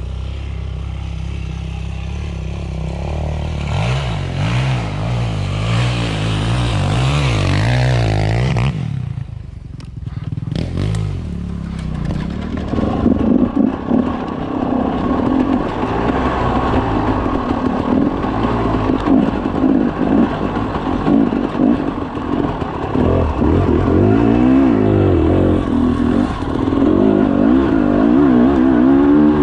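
Dirt bike engine revving up and down as it is ridden along a rough forest trail, with clattering from the bike over the bumps. The engine drops off briefly about nine seconds in, then comes back louder.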